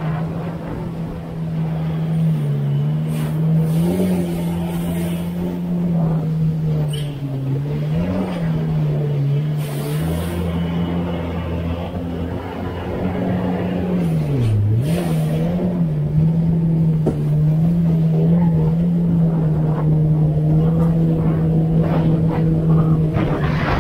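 Yamaha GP1800R WaveRunner's four-cylinder four-stroke engine running steadily under way, its note dipping and recovering briefly a few times as the throttle eases. Water rushes and splashes against the hull throughout.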